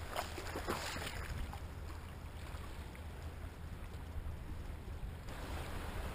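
Shallow seawater splashing and lapping as a hand dips into it, with a few sharper splashes in the first second. A steady low wind rumble on the microphone runs underneath.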